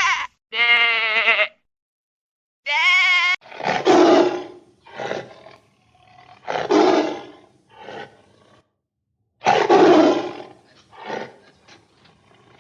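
Goat bleating, two short bleats that cut off abruptly, then a tiger roaring: a series of heavy roars and shorter grunts, the loudest about four, seven and ten seconds in.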